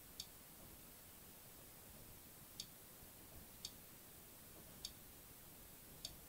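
Five faint, sharp clicks about a second apart from the front-panel control of a Rigol dual-output signal generator, each click stepping the output phase by one increment, over near silence.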